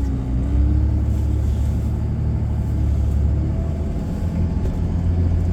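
A vehicle's engine and road rumble, heard from inside the cab while it drives slowly. It is a steady low drone with a faint rising and falling tone early on.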